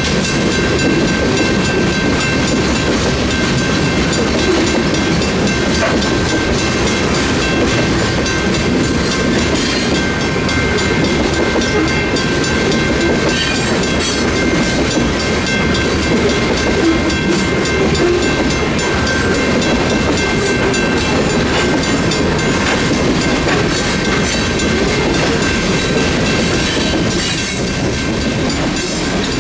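Freight cars of a long manifest train rolling steadily past, a continuous rumble with wheels clattering over the rails. Steady high-pitched tones ring on above the rumble.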